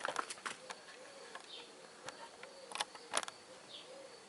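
A few faint, sharp clicks: several close together at the start and two more about three seconds in, over a quiet background with a faint repeating warble.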